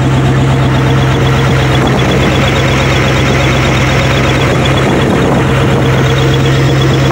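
An '84 7.4 L 454 big-block Chevy V8 idling steadily, heard close to the open engine bay. It is loud and even, with its exhaust cut open ahead of the catalytic converter.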